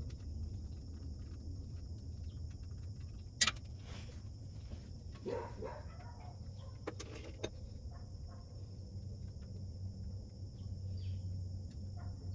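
Outdoor ambience: steady high-pitched insect chirring over a low hum, broken by a few sharp clicks, one about three and a half seconds in and a couple around seven seconds, from hand tools knocking on the truck's underside.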